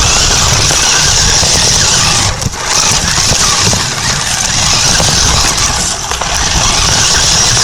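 Radio-controlled truck driving, its motor and gears whining loudly with a rumble of wheels and rattle picked up by a phone taped to the truck itself. The sound eases off briefly about two and a half seconds in and again around six seconds, as the throttle drops.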